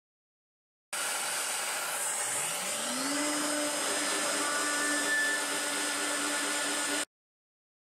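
CNC spindle running at high speed while a single-flute carbide endmill mills into a block of 5083 aluminium, a steady whirring noise with a hum that rises in pitch and then holds steady. It starts suddenly about a second in and cuts off abruptly near the end.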